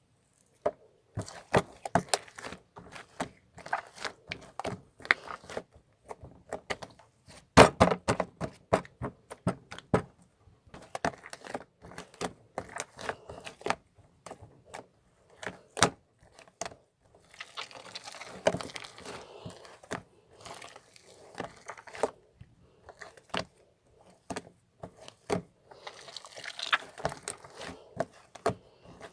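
Irregular clicks, knocks and taps of objects being handled, with stretches of scraping or rustling.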